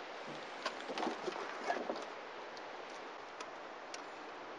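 A few faint light knocks and rustles as gear in a car boot is handled, then only a steady quiet outdoor hiss.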